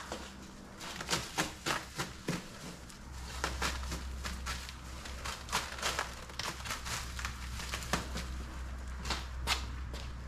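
Plastic stretch wrap crinkling and tearing as it is pulled off a wrapped package of wheels, in irregular sharp crackles, over a steady low hum.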